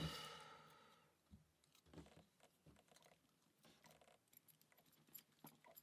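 Faint small metallic clicks and taps from thin lock shims and picking tools being handled and worked into a cross lock cylinder. At the start a struck metal piece rings and fades away over about a second.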